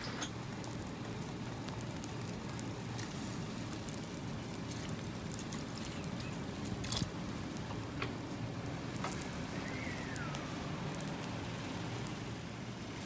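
Tea simmering in a steel pot over a charcoal grill: a steady crackling hiss with a few light clicks, as milk is poured into the pot about halfway through. A faint rising-then-falling whistle comes about nine seconds in.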